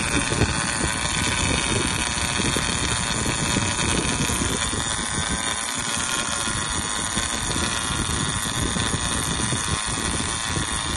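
Conventional fishing reel in free spool, the spool spinning in a steady whir as line pays out and the rig sinks toward the bottom.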